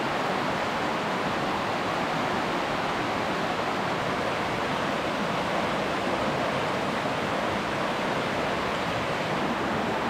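Rocky mountain stream running high after rain, its water rushing steadily over rock ledges and shallow rapids.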